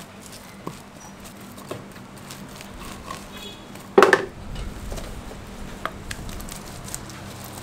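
Wooden spreader scraping and tapping lightly on a jianbing griddle as egg is spread over the crepe. A loud clatter of utensils about four seconds in.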